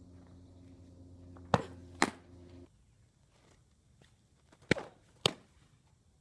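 Two softball pitches, each heard as a pair of sharp smacks about half a second apart, the ball popping into the catcher's mitt.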